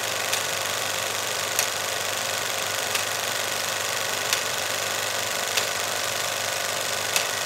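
Vintage film projector running: a steady mechanical whir and clatter, with a sharper click about every second and a quarter.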